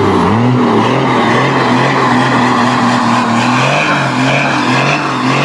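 A motor vehicle's engine running close by. Its note drops and recovers just after the start, then shifts slightly a few more times as the throttle changes.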